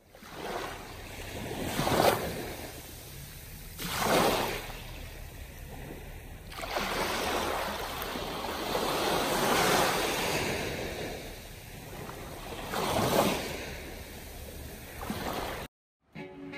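Small waves washing up a sandy beach, rising and falling in repeated surges. The sound cuts off suddenly near the end.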